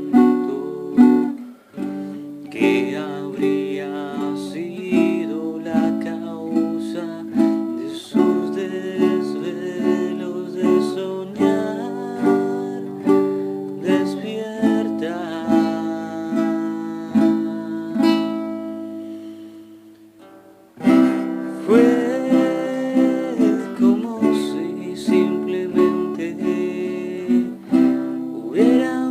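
Instrumental music on acoustic plucked strings, playing a repeating chord pattern. It fades away about 19 seconds in and comes back in at full level about two seconds later.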